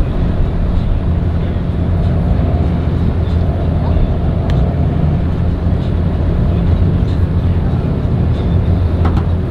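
Engines idling in a steady low rumble, with a few faint clicks.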